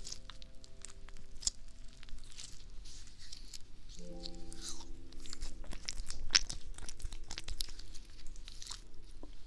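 Crisp crackling and clicking from something handled right against a binaural dummy-ear microphone's ears, with soft piano chords held underneath at the start and again about four seconds in.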